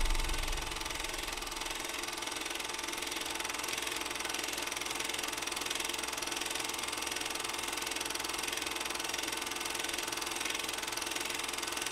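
A steady hissing, humming drone with no beat or change, the sound bed of an animated title card.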